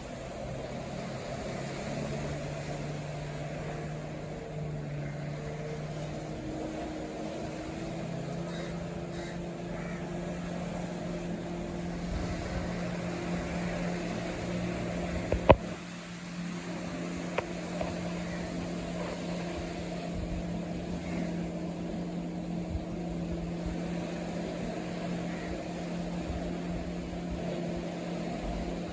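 A steady engine hum whose pitch steps up slightly about eight seconds in, with one sharp click about halfway through.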